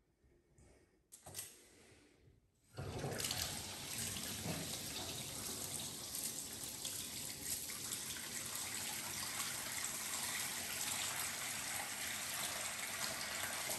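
Bath mixer tap turned on, a few faint clicks from the handle, then about three seconds in water starts running steadily from the tap into the bathtub as it begins to fill.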